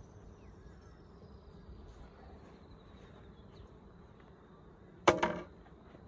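A single short, sharp clatter about five seconds in as a white board is set down on the ground in front of a beehive, over a faint steady buzz of honey bees flying around the hive.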